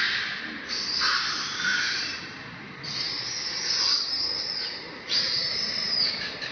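Baby long-tailed macaque screaming in distress while a juvenile macaque grabs it: a series of long, high-pitched screams, a new one starting about every two seconds.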